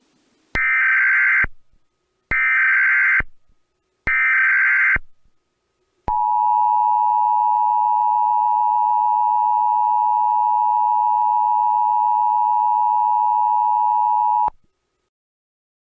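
Emergency Alert System SAME header: three short bursts of digital data tones, about a second each, followed by a steady single alert tone lasting about eight seconds that cuts off suddenly. The tones mark the start of an emergency alert broadcast, here an industrial fire hazard alert.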